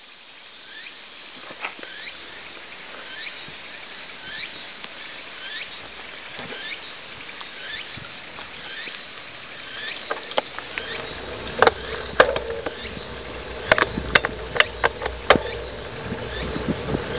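Bicycle coasting down a paved road: wind and tyre noise on the microphone growing louder as it gathers speed, with a short rising squeak repeating about every half second. From about ten seconds in, sharp knocks and rattles and a low rumble come in as the bike runs over bumps.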